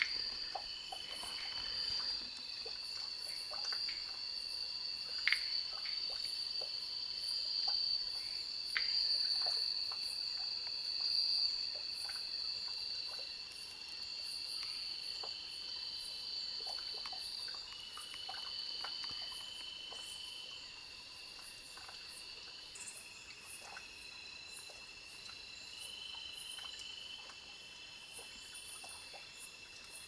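A chorus of cricket-like insects trilling steadily at several high pitches, some voices dropping out and coming back, with faint ticks and clicks scattered through.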